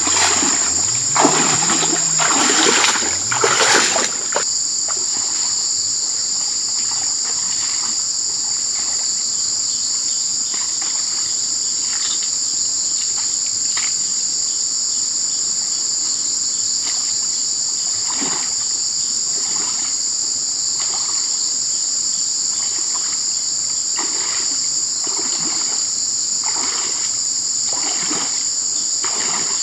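Footsteps wading through shallow stream water, splashing loudly in the first few seconds and then more faintly and now and then, growing again near the end. A steady, high-pitched insect chorus sounds behind them throughout.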